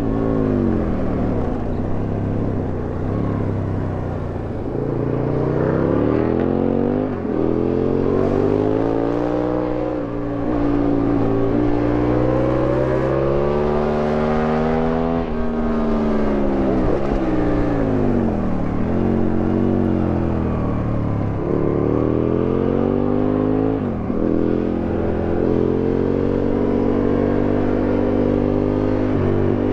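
Aprilia Tuono 1000R's V-twin engine heard onboard, revving hard: pitch climbs under acceleration and falls as it slows for the bends, with several sudden drops in pitch at gear changes or throttle closures.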